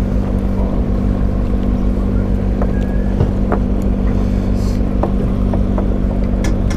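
Boat engine running steadily with a low, even hum, with a few light clicks and taps over it.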